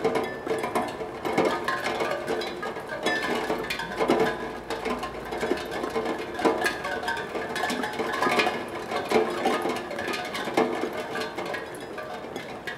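Raindrops striking a steel tongue drum, sounding its tuned tongues at random: irregular ringing notes that overlap and sustain into one another.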